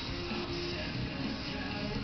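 A song with guitar, playing from a television's speakers.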